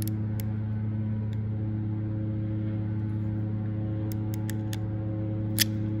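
Ratchet of a DMC AFM8 crimp tool clicking as its handles are squeezed to crimp a contact pin onto a wire: a few faint clicks, then four quick clicks about four seconds in and a louder snap near the end. A steady low hum runs underneath.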